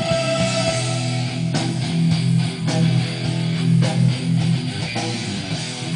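Recorded music with strummed guitar and bass, played from a CD player through a vintage Gradiente DS20 receiver and Gradiente Spectrum 65 loudspeakers, with a strum-like attack about once a second.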